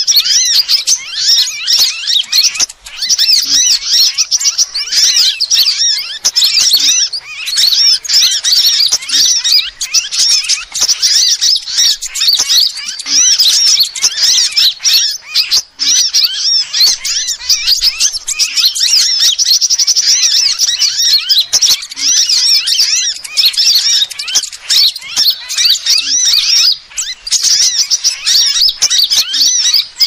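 Sunbird calls played as a bird-lure recording: dense, rapid, high-pitched chirping and trilling that runs almost without pause, broken by short gaps every few seconds.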